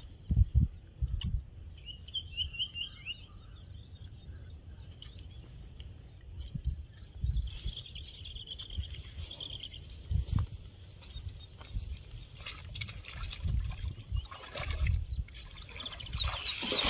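Gusts of wind buffeting the microphone in low, irregular rumbles, with a small bird chirping a quick run of short notes about two seconds in and more bird calls later on.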